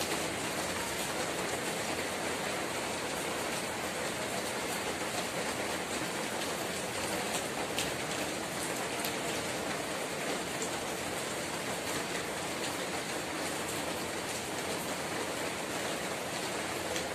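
Steady rainfall on a wet street and parked cars: an even hiss of falling drops with a few sharper drip ticks.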